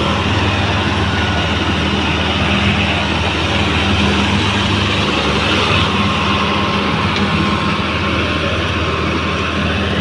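Mahindra Arjun 555 DI tractor's four-cylinder diesel engine running hard at a steady pitch under heavy load, hauling a trolley piled high with sugarcane while the rear wheels spin in the dust.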